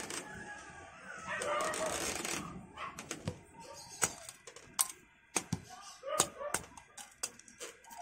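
Hard plastic kit runner clicking and knocking as it is handled and set down on a desk mat, a dozen sharp separate clicks in the second half. A rooster crows in the background about a second in.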